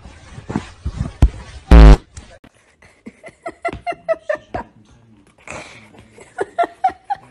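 A loud, low, buzzing fart sound effect lasting about a third of a second, laid over a dog sniffing a cat's rear as a joke. After it come a string of light, quick taps and clicks.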